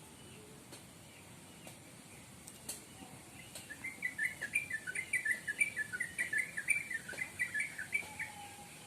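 Bird chirping: a fast run of short, jumping chirps starts about three and a half seconds in and goes on for about five seconds, with thinner high notes above it. A few faint clicks come before it.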